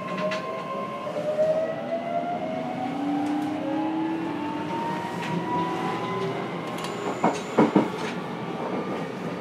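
JR Kyushu 303 series electric train running, heard from inside motor car MoHa 303-3: the traction motors' whine rises steadily in pitch as the train gathers speed. A short cluster of sharp knocks comes about seven to eight seconds in.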